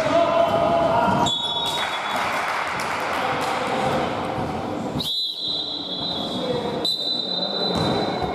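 Basketball game sounds in a large hall: players' voices and a bouncing ball, with a high steady tone that comes in briefly just after a second in and again for the last three seconds.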